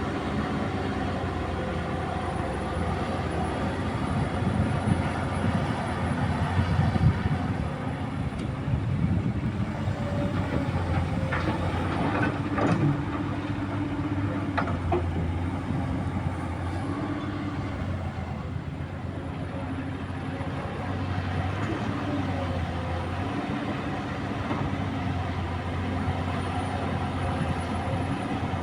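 Komatsu PC200 hydraulic excavator running under load while digging, its diesel engine note rising and dipping repeatedly as the hydraulics work. A few sharp knocks stand out, once near the start and several times near the middle.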